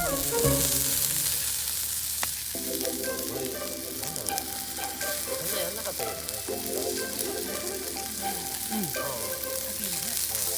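Food sizzling as it fries in a pan, a steady hiss, with background music joining about two and a half seconds in.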